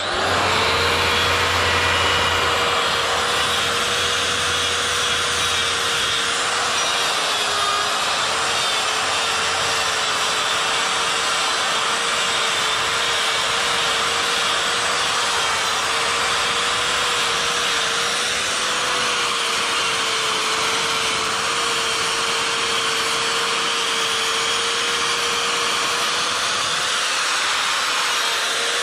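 Handheld electric die grinder with a carving burr running steadily and cutting into wood: a constant whine over the hiss of the burr on the wood. The whine sags briefly in pitch about seven seconds in.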